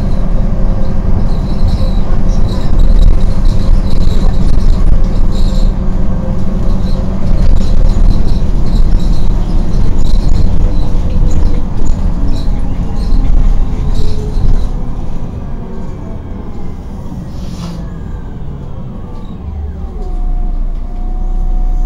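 City bus running, heard from inside: a steady low engine and road rumble while it drives, easing off over the last several seconds as the bus slows, with a falling whine and then a steady tone near the end.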